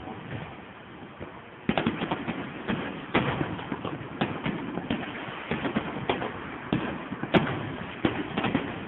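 Fireworks going off in a rapid, irregular string of bangs that start about two seconds in, each trailing off in an echo, with the loudest bang near the end.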